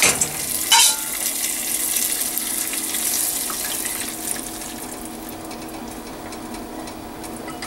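Hot tempering oil with dried red chillies, fennel seeds and curry leaves poured into a pot of coconut-milk sodhi, sizzling with a hiss that fades away over a few seconds. Two metal clinks of the small pan against the pot at the start and about a second in.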